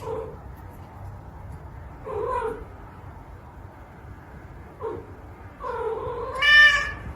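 A domestic cat meowing four times, the last a long call that rises into a loud, high-pitched meow near the end.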